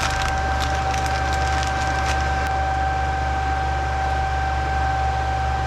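Steady machine whir of computer cooling fans, with a constant high whine and a low hum. A few light clicks of hardware being handled come in the first two seconds.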